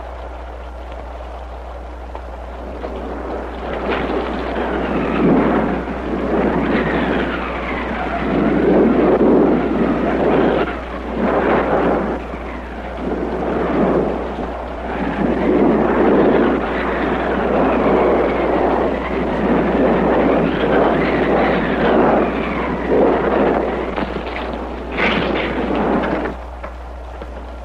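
Storm sound effects: a gusting, howling wind with high whistling glides and rumbles, swelling and fading every few seconds. It starts after a few seconds of low steady hum and stops shortly before the end.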